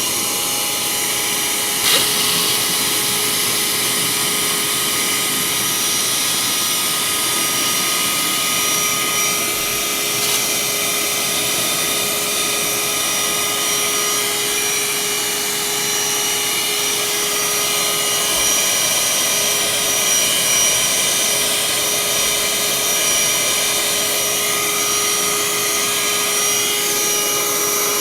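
Parkside PHSSA 20-Li A1 20 V cordless handheld vacuum cleaner, driven by an RS-550 DC motor, running steadily at full speed with a constant high whine while sucking up water. A brief knock about two seconds in.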